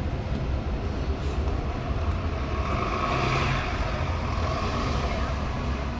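Steady low rumble with a hiss of background noise, swelling slightly midway.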